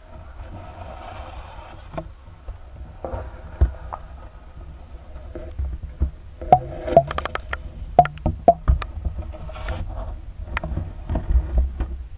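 Muffled knocks and clicks over a low rumble, sparse at first and then coming thick and fast through the second half: handling noise picked up by a GoPro Hero sealed in its waterproof housing and moved about underwater.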